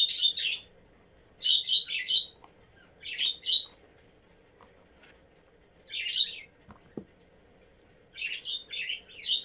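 A small bird chirping in five short bursts of quick high chirps, with a couple of faint taps about seven seconds in.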